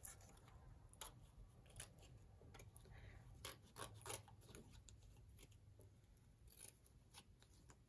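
Faint, irregular snips of scissors cutting through thin cardboard.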